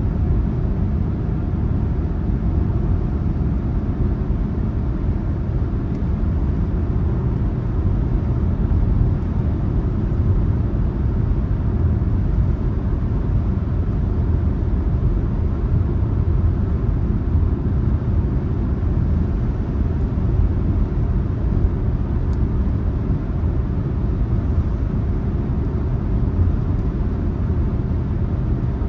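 A car driving at a steady speed: a constant low rumble of road and engine noise that holds even throughout.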